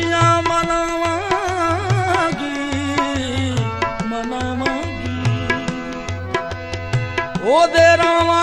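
Background music: a gliding, wavering melody over a steady drum beat.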